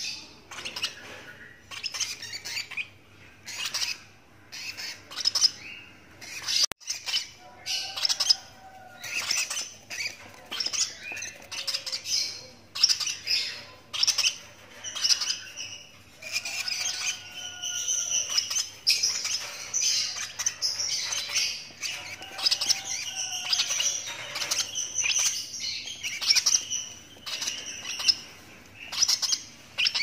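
Young lovebird chick calling over and over in a rapid run of short, high, rasping chirps, the food-begging calls of a nestling. The calls come thicker and louder from about halfway through.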